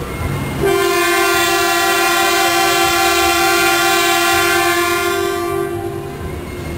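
0 series Shinkansen horn sounding one long, steady blast of about five seconds as the train departs.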